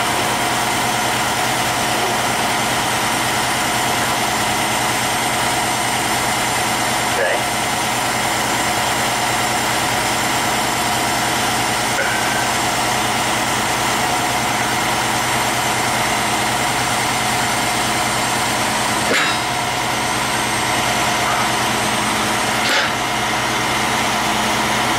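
Heavy diesel engine idling steadily, with a few faint knocks about a third of the way in and again near the end.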